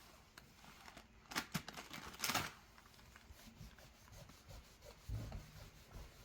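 A cloth rubbing and wiping over the chair's surface in a few short strokes, with a soft low bump about five seconds in.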